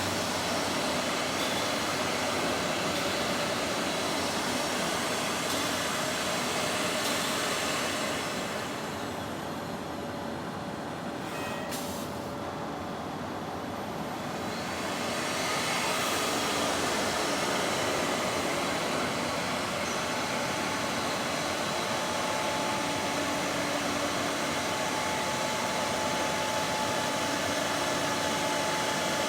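Multi-head CNC wood router running, its spindles cutting wood with a steady, full hiss. The high part of the sound falls away for a few seconds around the middle, then comes back.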